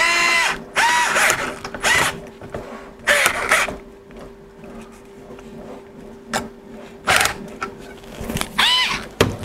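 Bosch Go cordless electric screwdriver tightening a propeller nut on a small brushless motor, run in several short bursts. Each burst whirs up and back down in pitch, with handling knocks between them.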